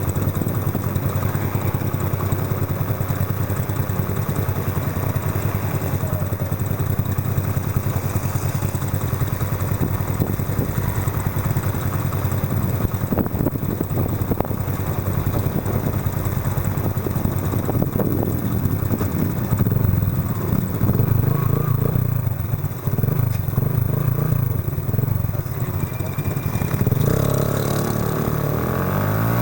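Yamaha Factor 125's single-cylinder four-stroke engine running through a Roncar Aluminium RS aftermarket exhaust on the move, its pitch rising and falling with the throttle, and revving up near the end.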